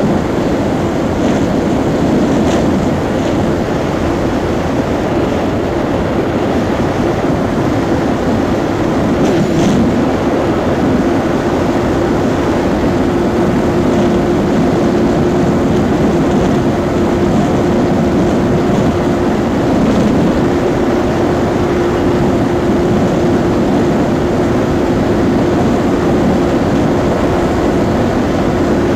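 Yamaha R15 V4's single-cylinder engine running flat out in sixth gear near its top speed, a steady engine note that holds without rising or falling, under heavy wind rush on the microphone.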